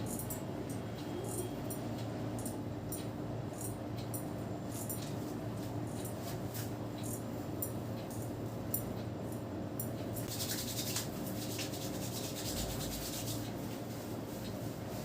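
Hands rubbing and kneading a scalp through the hair, with scattered soft crackles and a denser stretch of rubbing about ten seconds in that lasts about three seconds, over a steady low hum.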